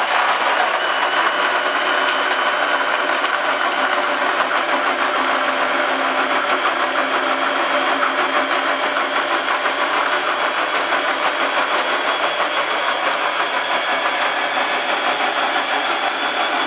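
Electric kitchen blender motor running steadily at speed, churning apple pieces, ice cubes and sugar with a little milk into a shake.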